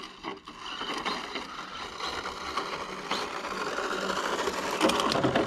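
Brushless-powered front-wheel-drive RC drag car driving back at low speed, its electric motor and gears whirring with a steady whine that grows louder as it approaches.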